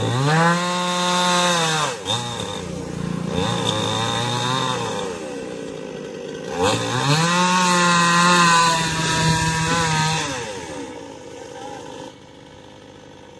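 Chainsaw cutting mango-wood logs to trim them level on a loaded lorry. The engine revs up to full speed and holds, drops back, then revs and holds again about six and a half seconds in, before falling to a quieter idle near the end.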